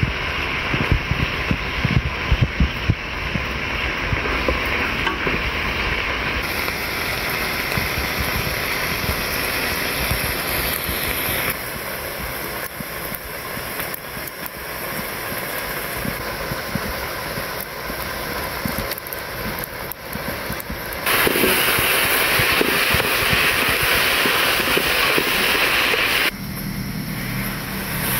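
Cooking over a small wood-fired stove: the fire burns under a pot of simmering stew with a steady noise, and wooden chopsticks knock against the pot several times in the first few seconds. The sound shifts abruptly a few times.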